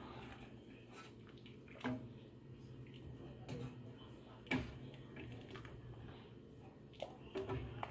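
A spoon or ladle knocking against a pot a few times, spaced seconds apart, with faint water sounds, as boiled potatoes, corn and sausage are scooped out of the seafood-boil water; a steady low hum runs underneath.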